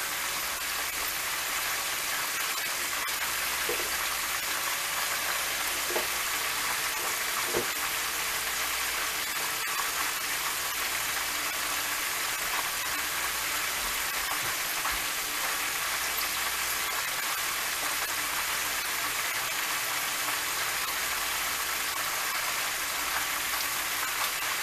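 Chicken wings deep-frying in a pot of hot oil: a steady, even sizzle with a few faint pops.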